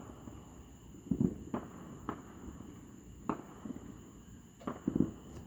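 Distant fireworks going off: about six scattered, irregularly spaced sharp pops, two of them duller booms.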